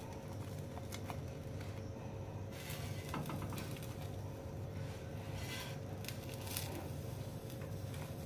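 Toasted bread sandwiches being handled and set down on a ceramic plate: scattered light clicks and short rustling scrapes, over a steady low hum.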